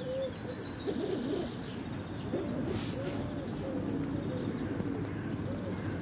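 Birds cooing in low, rounded, repeated calls, with a few faint higher chirps.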